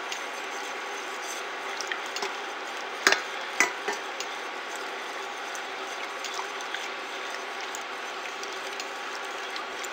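Silicone spatula stirring borax powder into hot water in a stainless steel pot, dissolving it toward saturation. The stirring runs over a steady hiss, with three sharp clicks of the spatula against the pot about 3 to 4 seconds in.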